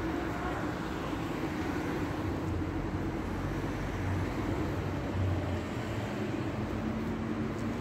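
City street traffic noise: the steady hum of motor vehicles running and passing, with a low rumble.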